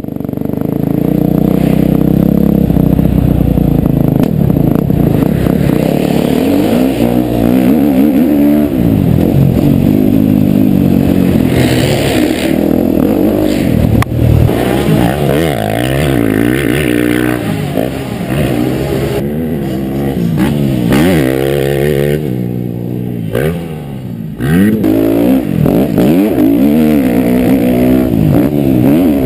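KTM 250 SX-F four-stroke single-cylinder motocross bike heard onboard while ridden hard, its engine revving up and dropping back again and again with the throttle. The engine eases off briefly about three-quarters of the way through before climbing again.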